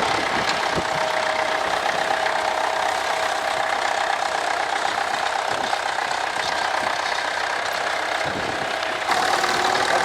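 Tractor engine running at a steady speed. Its pitch sags slowly, then it gets louder and picks up in pitch about nine seconds in.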